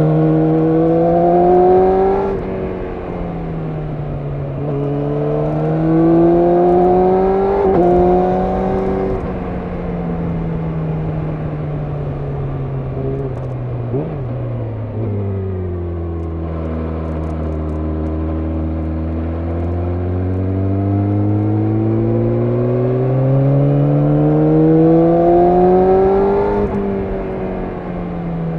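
Yamaha YZF-R6 inline-four engine under way. The revs climb and drop back with gear changes in the first ten seconds, then fall steadily to a low, even pitch as it slows. It climbs again for several seconds before another shift near the end.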